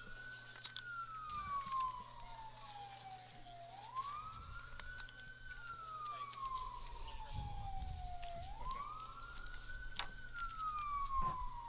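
Police car siren in wail mode: it rises quickly and falls slowly, each rise and fall taking about four and a half seconds, about three times over.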